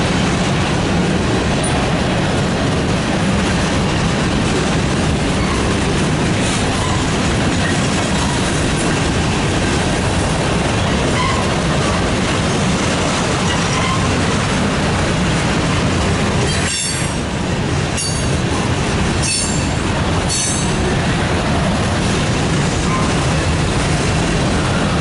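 Freight train cars, tank cars and covered hoppers, rolling past: a loud, steady rumble and rattle of steel wheels on the rails.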